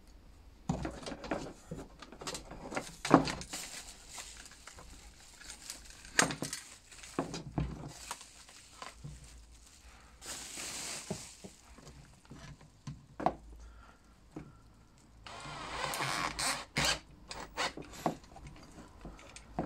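Handling noise as a Makita P-90451 grease gun attachment is fitted to a Bosch cordless drill: a scattered series of hard knocks and clicks of metal and plastic parts, with two longer rustling stretches about ten and fifteen seconds in. The drill motor does not run.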